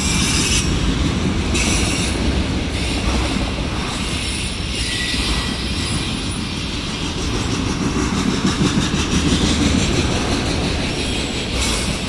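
Freight train of autorack cars rolling past: steel wheels running steadily over the rails with a continuous low rumble, and high-pitched wheel noise that comes and goes.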